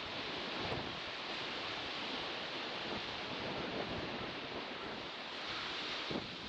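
Sea waves washing onto a shore: a steady rushing surf.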